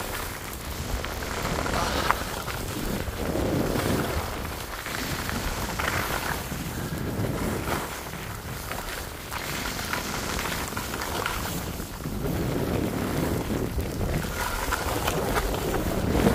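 Wind noise on the microphone in swells that rise and ease every few seconds, mixed with the hiss of wet, sleet-like snow pelting down.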